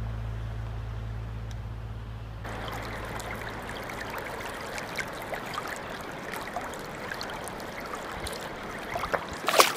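A pickup truck's engine gives a steady low hum that cuts off about two and a half seconds in. River water then rushes and splashes close by, with many small splashes and a louder splash or knock near the end.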